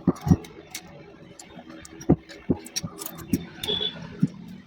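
Irregular taps and clicks, roughly one every half second to a second, from hand work on a ceiling fan's wound stator as insulating lock paper is fitted into its slots.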